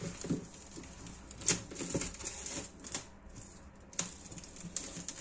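Handling noises of an unboxing: scattered clicks and taps of packaging and parts being moved about, about five separate knocks over a few seconds.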